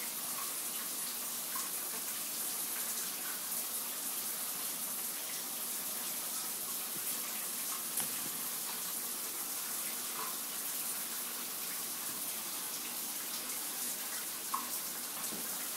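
A steady, even hiss throughout, with a couple of faint clicks, one about eight seconds in and one near the end.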